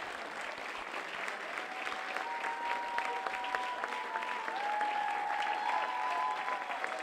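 Audience applauding, with dense clapping throughout. From about two seconds in, several long, high, steady calls from the audience carry over the clapping.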